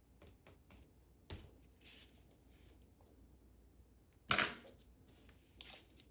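Small metal clicks and scrapes of a tool working at the C-clip that retains a Goal D9 dimple lock's core. There is a louder brief metallic scrape about four and a half seconds in, then a sharp click about a second later.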